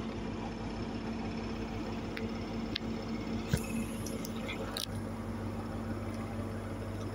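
Diesel engine of a stationary HST power car idling steadily, a low hum that grows a little stronger about five seconds in. A few clicks and rubs from fingers handling the phone.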